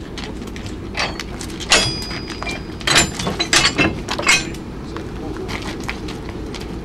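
Metallic clanks and ringing knocks from a railway vehicle's coupling gear and chain being handled, several in quick succession between about one and four and a half seconds in, over a steady low rumble.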